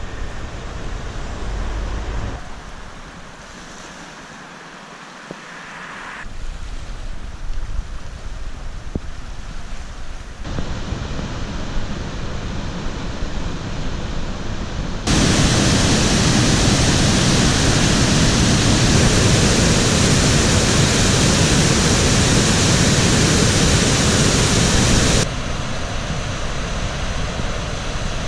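Steady rushing of high, swollen river water, in several shots joined by sudden cuts. The loudest stretch, about ten seconds long starting halfway through, is much louder than the rest.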